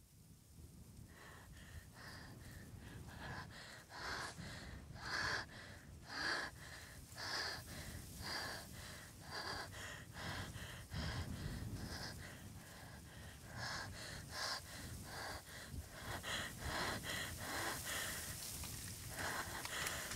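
A person breathing quickly and heavily, short loud breaths in and out about one to two a second, over a low rumble of background ambience.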